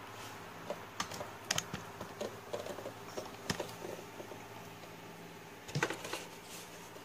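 Plastic RC crawler body shell being handled and lifted off its chassis: scattered light clicks and knocks, the loudest cluster a little before the end, over a faint steady low hum.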